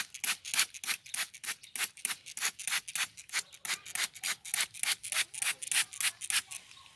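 Plastic hand trigger spray bottle pumped rapidly, about four hissing squirts a second, misting liquid onto cabbage leaves. The squirts stop near the end.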